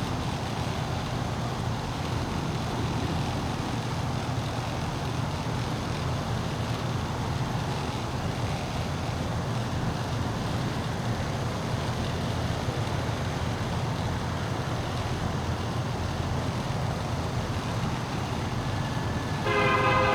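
Steady low rumble, then a diesel freight locomotive's horn starts blowing near the end, a loud chord of several steady tones.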